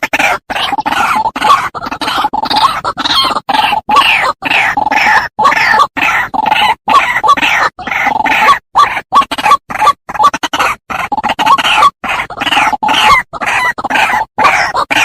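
White-breasted waterhen calls played as a bird lure: a loud, rapid, unbroken run of harsh croaking notes, chopped by many brief dropouts.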